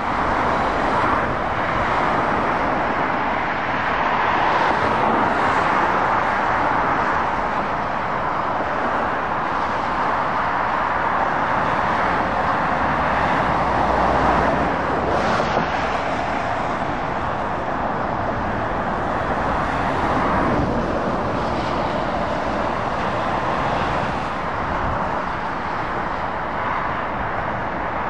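Steady road traffic noise from cars and heavy lorries going by: tyre roar and engines swelling and fading as each vehicle passes, loudest about halfway through as a lorry passes close by.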